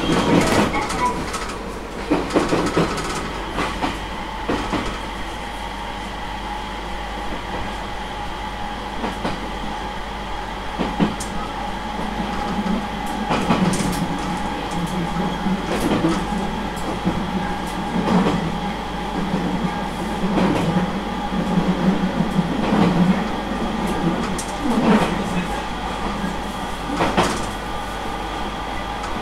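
Aoimori Railway 701-series two-car electric train running between stations, heard from the conductor's position inside the train. A steady running noise with a few constant tones, the air conditioning on, and wheels knocking over rail joints about every two seconds.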